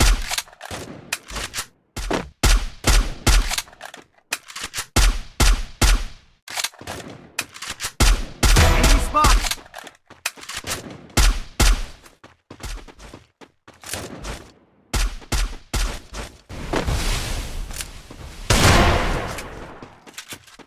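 Volleys of loud gunshot-like bangs, each with a deep bass boom, firing in irregular bursts. Two longer stretches of continuous rattling blasts come around the middle and near the end.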